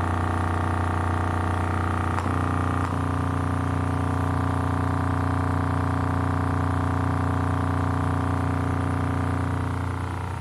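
A bare Aiwa 6.5-inch midbass speaker driver playing a 30 Hz tone in free air, its cone flexing hard. It sounds as a loud, steady low hum with a dense stack of overtones reaching well up in pitch, the distortion of a small driver pushed to its limit. The hum fades out near the end.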